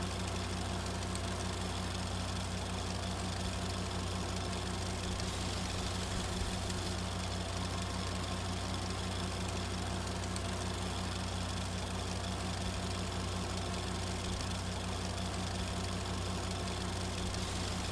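A steady low electric hum with a fast, even flutter in it, over a faint hiss.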